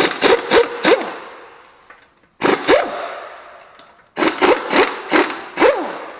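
Pneumatic impact wrench with a 19mm socket loosening wheel lug nuts. It comes in three groups of short, loud trigger pulls, and after each pull the whine falls in pitch as the tool spins down.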